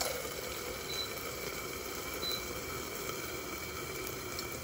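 Hamburger patty frying in a covered stainless steel pan: a faint, steady sizzle muffled by the lid, with a light knock as the lid is set down at the start.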